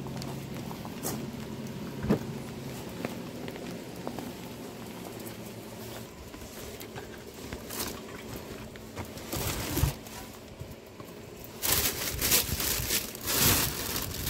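Groceries handled in a car's cargo area: scattered knocks and clicks, then thin plastic grocery bags rustling and crinkling loudly over the last few seconds.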